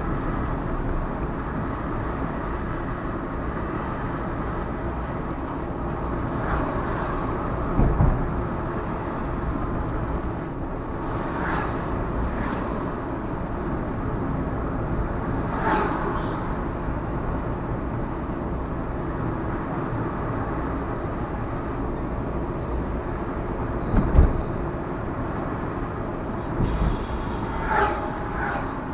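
A car driving on a road: steady engine and tyre rumble. There are two heavier thumps, about eight seconds in and again about 24 seconds in, and a few brief higher-pitched sounds from the traffic around it.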